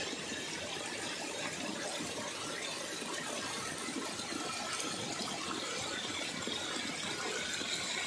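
Small waterfall splashing steadily, water pouring over rocks into a shallow pool.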